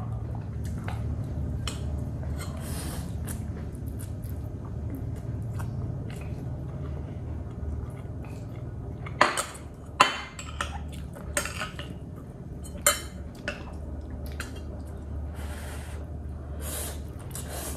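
Someone eating thick instant noodles: chewing and slurping, with chopsticks and a metal spoon clicking against a white ceramic bowl, the sharpest knocks coming between about 9 and 13 seconds in. A steady low hum runs underneath.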